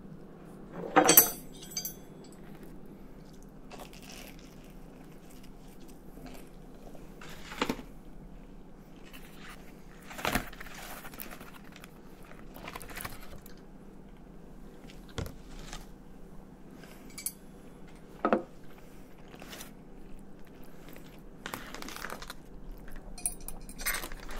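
Eating a takeout spaghetti dinner: a foil takeout tin and its paper-board lid crinkle, a metal knife and fork clink and scrape against the foil, and there is chewing. These come as scattered short clicks and rustles over a low steady hum.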